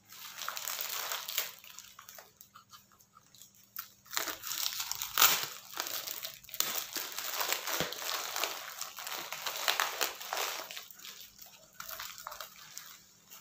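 Brown paper and corrugated cardboard packaging crinkling and rustling as hands unwrap a bundle of plant stem cuttings. The rustling comes in spells, quieter for a moment about two seconds in, with the loudest crunch about five seconds in.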